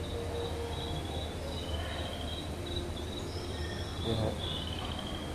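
Repeated high, insect-like chirping trills over a steady low hum, with one brief low sound about four seconds in.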